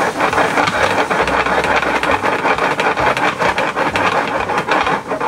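A hot pan of bananas caramelizing in butter and brown sugar sizzles and crackles loudly as Grand Marnier is poured in and flambéed.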